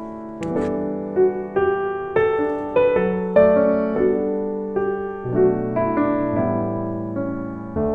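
Background piano music: a slow run of single notes and chords, each struck and left to fade.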